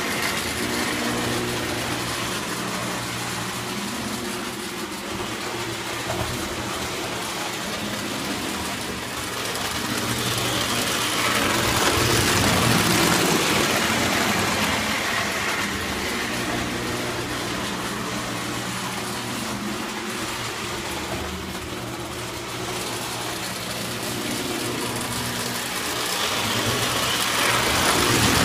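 Electric O-gauge model trains running on metal three-rail track: a steady motor hum with wheel rumble on the rails. The rumble swells as a train passes close about twelve seconds in, and again near the end.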